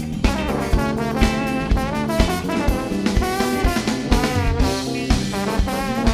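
Live funk-jazz band playing, with a horn section of trombones, trumpet and saxophone sounding a held, bending brass line over a drum kit beat of about two hits a second.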